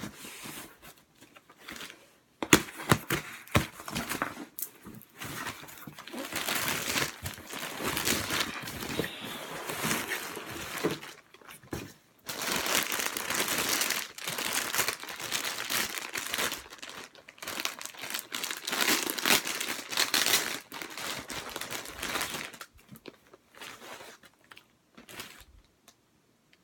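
Packaging being crinkled and torn open by hand: a few sharp crackles at first, then about twenty seconds of dense crinkling, fading near the end.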